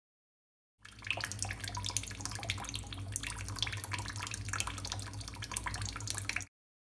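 A thin trickle of water from a single-lever mixer tap left slightly open, running at a minimum flow of about 25 litres per hour. It falls as a quick patter of small splashes over a low steady hum. The sound cuts in about a second in and stops abruptly near the end.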